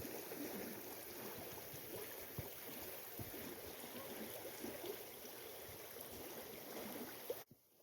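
Faint steady rush of a flowing river, with a few light ticks, cutting off suddenly near the end.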